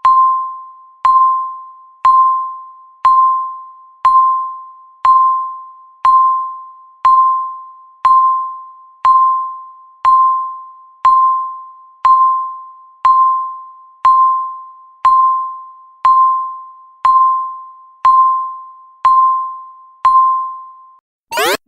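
Countdown timer's tick sound: a short, ringing electronic ping once every second, each one fading away before the next. Right at the end the ticks stop and the timer's end-of-countdown alarm starts, a fast-repeating rising electronic sweep.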